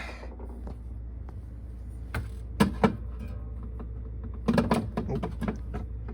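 A few sharp knocks and clicks from objects being handled: two about two and a half seconds in and a short cluster near the five-second mark, over a steady low hum.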